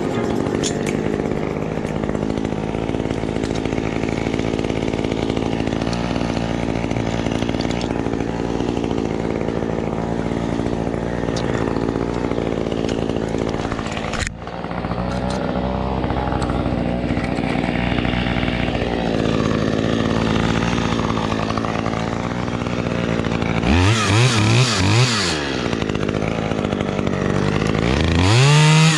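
Husqvarna two-stroke chainsaw running steadily at high speed during tree work, with a brief drop about halfway through. Near the end it is revved up and down several times in quick succession.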